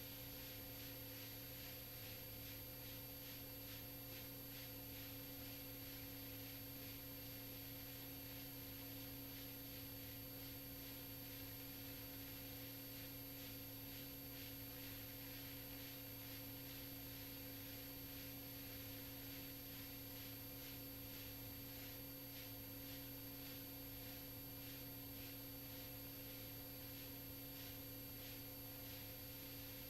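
Faint steady electrical hum and hiss: a few constant tones over low hiss.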